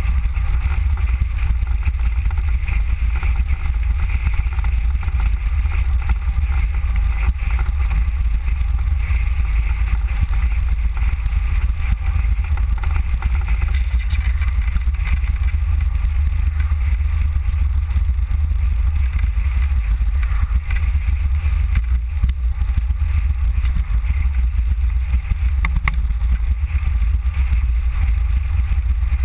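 Steady low rumble and hiss of a Mango velomobile rolling along an asphalt road, heard from a camera mounted on its shell, with wind on the microphone.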